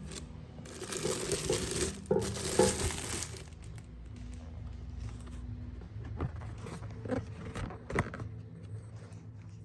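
Packaging being crinkled and torn while a pot is unwrapped, rustling for the first few seconds, then a few light clicks and knocks.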